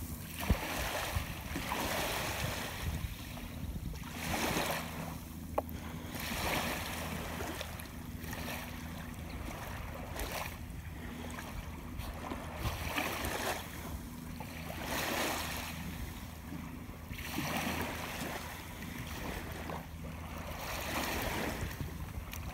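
Small waves lapping at the edge of a sandy beach, a wash of water coming in about every two seconds, over a faint steady low hum.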